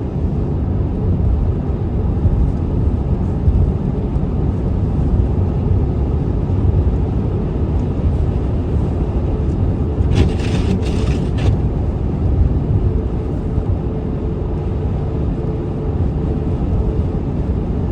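Steady low rumble of a moving car's tyres and engine heard from inside the cabin, driving on a snowy road. About ten seconds in, a brief hiss lasts a second or so.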